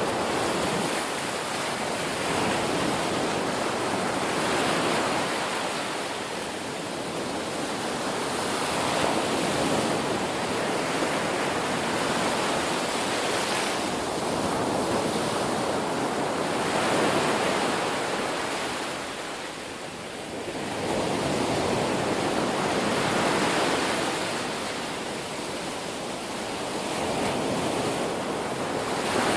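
Ocean surf: waves breaking and washing ashore in a continuous rush that swells and eases every few seconds, dipping most clearly about twenty seconds in.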